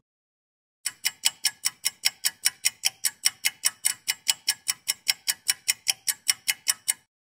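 Typing sound effect: rapid, evenly spaced clicks, about five a second, starting about a second in and cutting off suddenly near the end.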